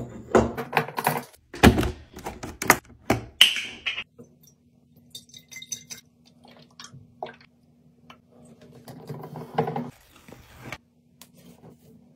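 A plastic pump dispenser and a glass jug being handled, with a quick run of clicks and knocks. Then liquid fabric softener is poured from a plastic bottle into the jug, quieter, with a louder noisy stretch near the end.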